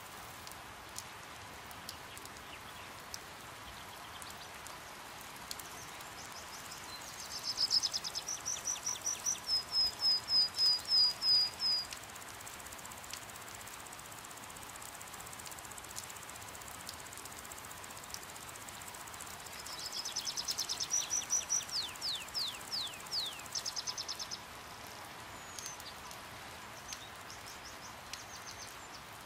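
Steady rain hiss with scattered drops tapping, and a bird singing two bursts of quick, high repeated notes, one about seven seconds in and another about twenty seconds in, the second ending in a run of falling notes.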